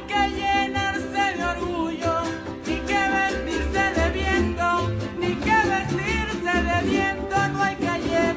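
Background music in a Latin style, with a steady beat and a melody line that slides into its notes.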